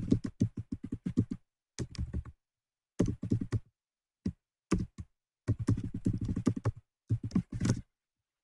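Typing on a computer keyboard: rapid key clicks in quick bursts with short pauses between them, stopping shortly before the end.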